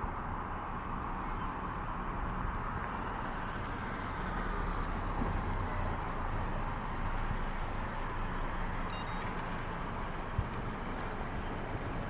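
Steady road and traffic noise, with vehicle engines and tyres on pavement, swelling slightly in the middle.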